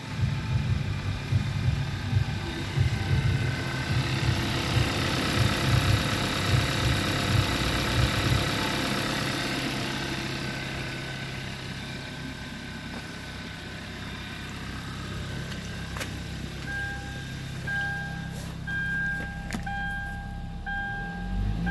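2013 Hyundai ix35's 2.0-litre four-cylinder engine idling steadily on test; the engine tested good. Near the end a warning chime beeps about once a second over the idle.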